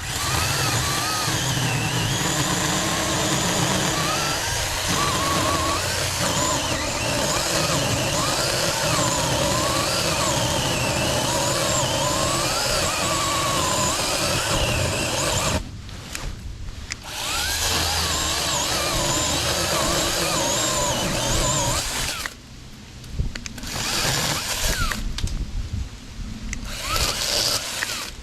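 Saker 20-volt battery mini chainsaw running and cutting wood, its motor whine dipping and rising in pitch as it takes load. It stops briefly three times in the latter half.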